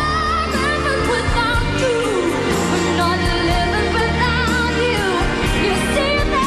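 A female vocalist singing a sustained, wavering melody into a handheld microphone over live band accompaniment with steady bass notes.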